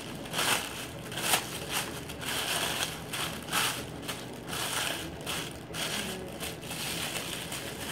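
Thin white tissue paper or wrapping crinkling and rustling in irregular bursts as it is handled and folded.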